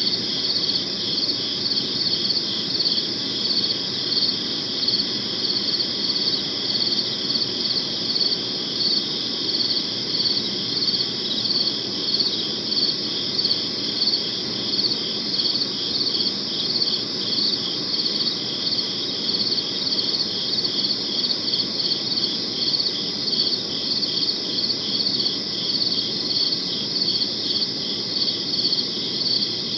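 Crickets chirping in a dense, steady chorus of rapid, evenly pulsing high trills.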